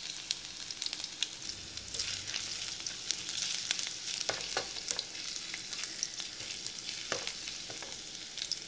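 Crushed ginger, garlic and green chillies sizzling and crackling in a little hot oil in a nonstick kadai, stirred with a wooden spatula that scrapes the pan a few times. The aromatics are being fried until their raw smell cooks off.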